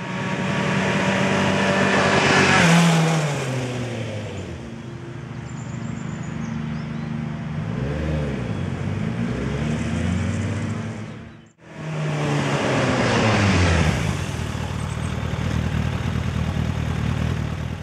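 Sport motorcycle engine heard in two runs joined by a sudden cut about halfway. In each the engine note falls as the bike comes past and slows, with a brief rise and fall in pitch in between.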